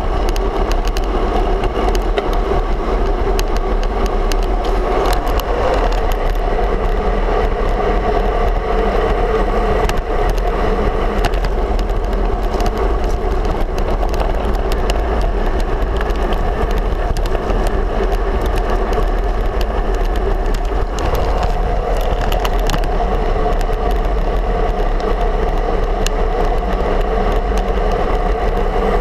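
Steady wind noise buffeting a handlebar-mounted camera's microphone, with tyre and road rumble from a road bike rolling at speed on asphalt.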